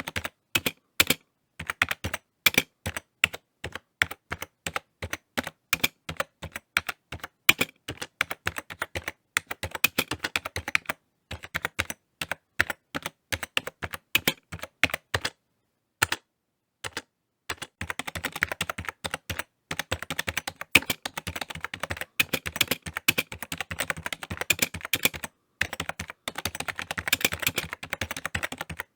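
Typing on a computer keyboard: irregular runs of key clicks with short pauses, the longest lasting about a second and a half around the middle, and a faster, denser run of keystrokes in the last third.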